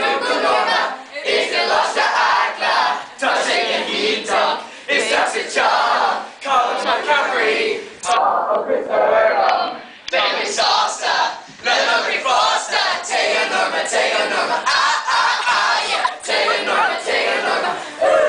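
A group of boys singing loudly together in unison, in short phrases with brief breaks between them.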